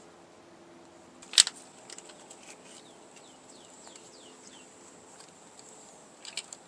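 A single sharp click about a second and a half in, from working a stuck terminal in an engine wiring harness connector, then a few faint handling clicks. Behind it, a run of short falling chirps from a bird.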